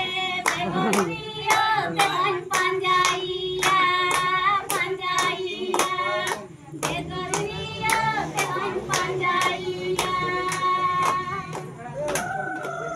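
A group of women singing together to steady rhythmic clapping, about three claps a second.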